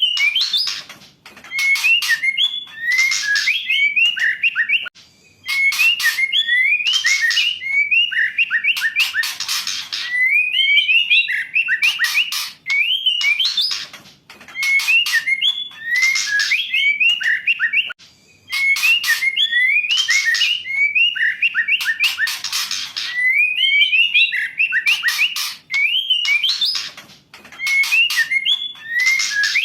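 Female white-rumped shama calling. Sharp clicks and harsh rasping bursts alternate with short, upward-sliding whistled notes, and the phrase repeats every few seconds.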